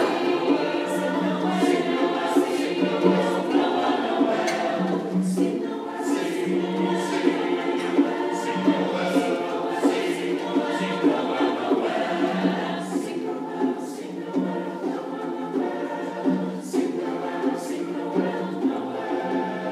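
Church choir singing a carol in parts, with sharp taps keeping a steady beat about once a second.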